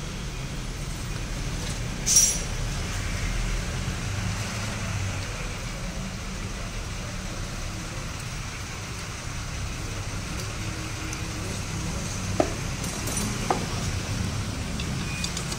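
Kawasaki Ninja two-stroke motorcycle engine idling steadily, with a short sharp click about two seconds in and two faint ticks near the end.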